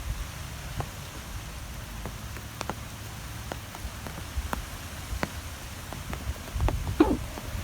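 Wind blowing with a low rumble, with scattered irregular light taps like drops falling, and a louder burst about seven seconds in.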